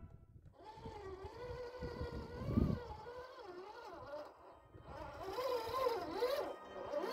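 Electric motor and gear drivetrain of a scale RC crawler whining, its pitch rising and falling with the throttle as the truck creeps over rocks, with a low thump about two and a half seconds in.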